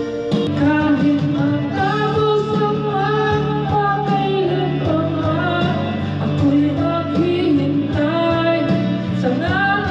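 Karaoke song over loudspeakers: a backing track with a voice singing the melody in long held lines over a steady bass.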